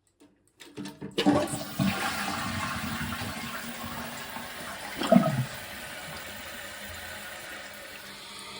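Toilet being flushed: a click or two just before a second in, then a sudden rush of water that eases to a steady run, with a brief louder surge about five seconds in. A test flush after a new Siamp fill valve washer was fitted to a fill valve that wasn't shutting off.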